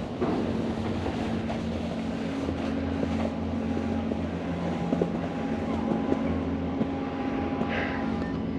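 Snowboard running over slushy spring snow: a steady rushing scrape with a low hum and occasional small clicks.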